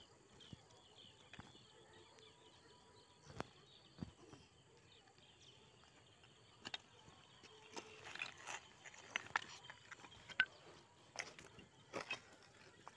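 Quiet outdoor ambience with faint chirping in the first two seconds, then scattered clicks and knocks of loose stones shifting underfoot, more frequent over the second half.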